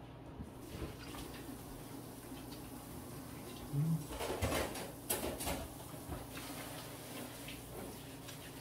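Eating noises at a dinner table: chewing and crunching with light clicks of chopsticks and a plastic cup, loudest in a cluster about four to five and a half seconds in.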